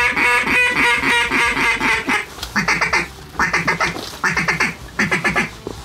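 Duck call blown to work circling ducks: a fast, even chuckling run for about two seconds, then four short bursts of quacks at a steady beat.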